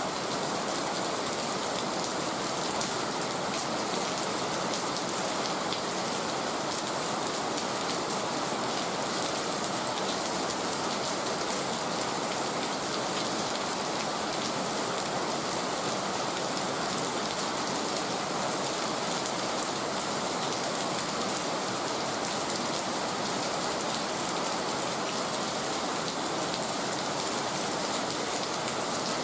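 Heavy rain falling steadily and evenly, without let-up.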